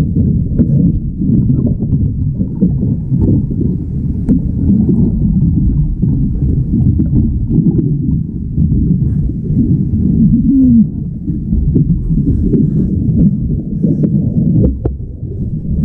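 Strong wind buffeting the camera's microphone: a loud, continuous low rumble.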